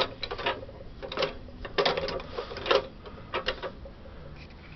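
1928 Singer 29K51 industrial leather-sewing machine driven by its treadle, the needle mechanism clattering in quick, uneven runs of strokes that die away near the end.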